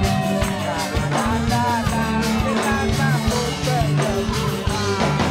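Upbeat band music with a steady drum beat, guitar and singing.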